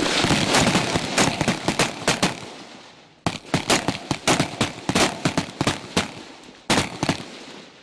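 Rifle fire from a firing line: rapid, overlapping shots in two dense runs about three seconds long, separated by a brief pause, then a couple more shots near the end.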